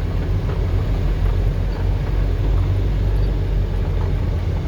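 Truck engine running steadily at low revs, a continuous low drone, as the truck rolls slowly downhill.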